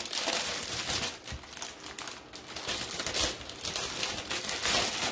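Clear plastic packaging of diamond-painting drill packs crinkling in the hands as it is handled and searched through, in irregular rustling bursts.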